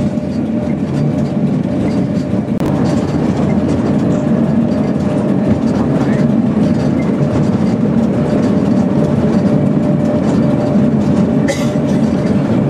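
Pilatus cog railway's electric railcar climbing the rack line, heard from inside the carriage: a steady rumble of the drive and running gear with a constant thin hum.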